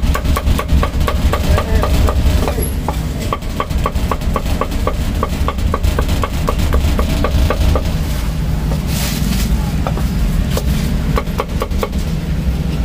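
Cleaver chopping crispy roast pork on a wooden chopping block: quick, even strokes about four a second, each a short ringing knock, thinning to scattered chops after about eight seconds, over a steady low rumble.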